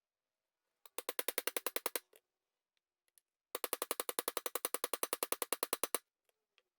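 Two runs of rapid, even metallic clicking, about a dozen clicks a second: one about a second long, then a longer one of about two and a half seconds. The clicking comes as a tool works to press a tapered roller bearing onto the Dana 18 transfer case output shaft.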